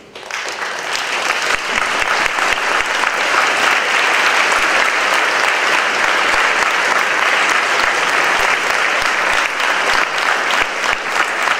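Audience applauding: a dense, steady clapping that builds up within the first half second.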